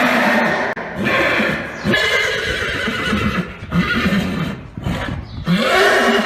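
Horses neighing, several whinnies in quick succession, each with a shaky, wavering pitch.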